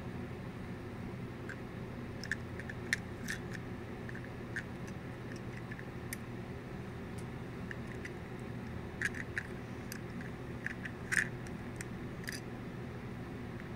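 Small sharp clicks and taps from a die-cast metal toy tow truck being turned over in the fingers, a few scattered and some in quick clusters, over a steady low hum.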